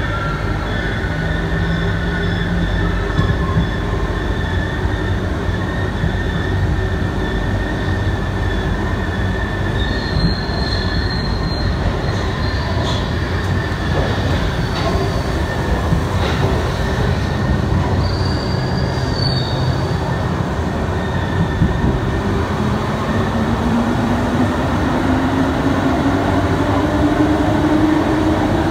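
MP05 rubber-tyred metro train running through a tunnel, a steady rumble of running gear with a high-pitched squeal coming and going twice midway. Near the end, a whine rises steadily in pitch as the train picks up speed.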